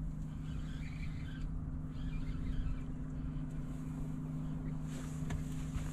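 A boat motor running with a steady low hum, over a low rumble of wind on the microphone.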